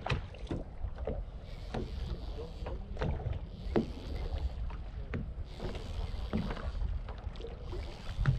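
Wind and sea water rumbling around a small boat, with irregular sharp knocks against the hull every half second to a second and a half, the loudest near the end.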